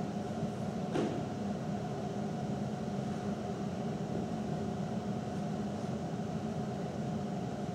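Steady low mechanical hum, with one faint click about a second in.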